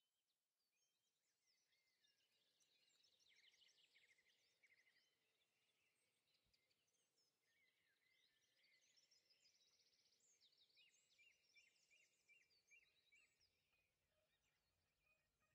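Very faint birdsong near silence: several birds chirping and trilling in quick runs. A faint low hum comes in near the end.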